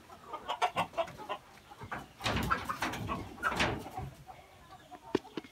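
Chickens clucking, louder in the middle, among a few light clicks and taps.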